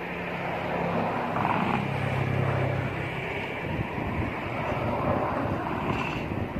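A motor vehicle's engine running with a steady low hum, which fades into general outdoor noise after about three seconds.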